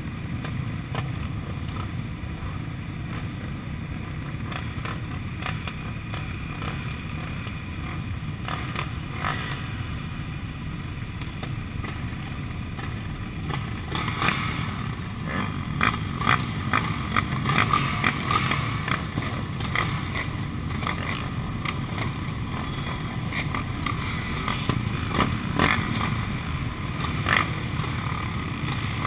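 Many sport quad (ATV) engines idling together, a steady low rumble. From about halfway through, irregular sharp clicks and knocks sound on top.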